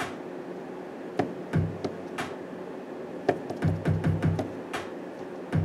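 Drum samples from the djay Pro sampler, triggered one at a time from the performance pads of a Pioneer DDJ-SX3 controller: low kick-like thumps and sharper hits, tapped out unevenly rather than in a steady beat.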